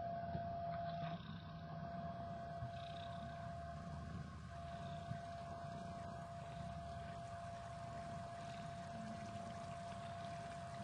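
Mother cat purring steadily as she nurses her kittens, a low continuous rumble, with a thin steady hum above it.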